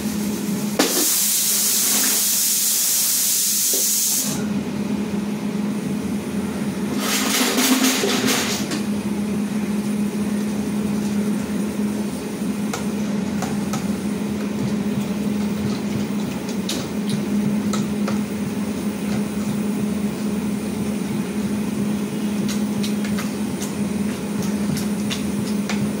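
A ladle stirring and knocking lightly in a steel cooking pot over a steady low hum. A loud hiss comes in about a second in and lasts some three seconds, and a shorter one follows around seven seconds in.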